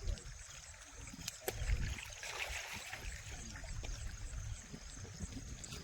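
River water flowing and trickling, with a few sharp knocks and a brief rush of water about two seconds in.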